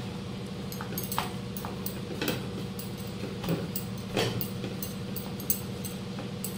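Wooden spatula scraping and knocking against a non-stick pan as mashed potato is stirred and pressed, in irregular strokes about once a second, over a steady low hum.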